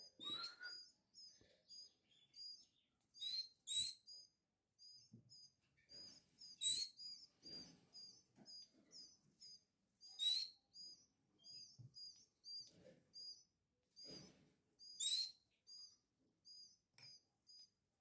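Portuguese harlequin canary chicks begging to be fed: a steady run of short high cheeps, about three a second, broken by a few louder calls.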